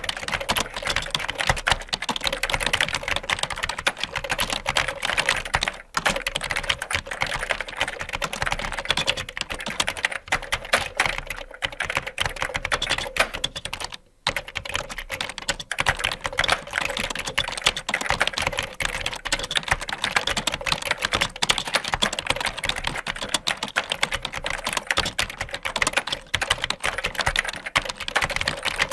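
Fast, continuous typing on a computer keyboard, a dense run of key clicks that breaks off briefly twice.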